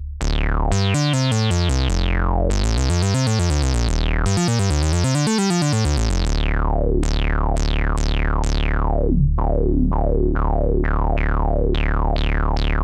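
Oberheim Two Voice Pro analog synthesizer holding a low, thick bass note while its filter is worked by hand. The tone wavers for the first six seconds, then a run of falling filter sweeps repeats over the held note, coming quicker near the end.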